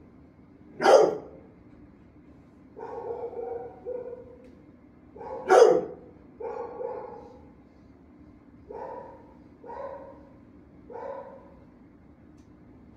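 Dogs barking in a shelter kennel: two loud, sharp barks, about a second in and near the middle, with softer, lower barks between and after them.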